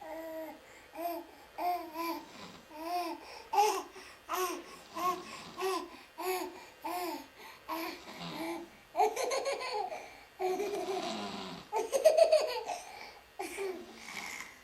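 Someone laughing in a steady run of short 'ha' sounds, about one and a half a second. About nine seconds in it breaks into louder, breathier laughter.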